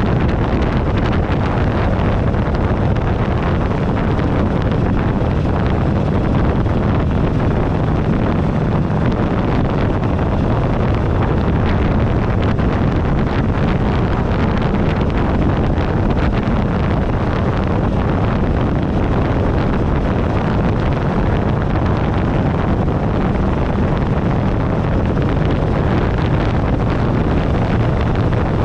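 Steady wind noise buffeting a handlebar-mounted camera microphone on a motorcycle at riding speed. Underneath it runs the Buell Ulysses XB12XT's 1203 cc V-twin engine.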